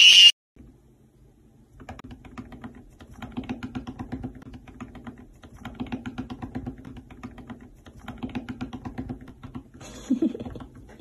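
A brief loud burst at the very start, then rapid light clicking in four bursts of a second or two each, like typing, over a faint low hum.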